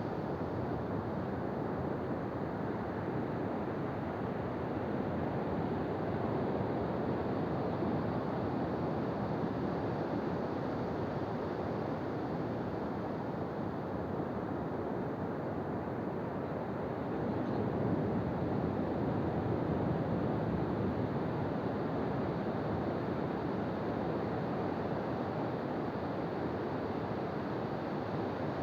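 Ocean waves breaking and washing on a beach, a steady rushing surf that swells gently louder twice, with wind on the microphone.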